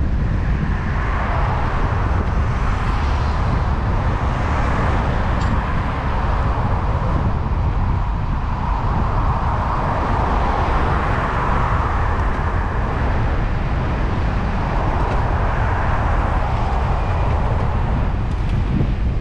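Wind rumbling steadily on the microphone of a camera riding on a moving bicycle, with the hiss of road traffic swelling and fading past about three times.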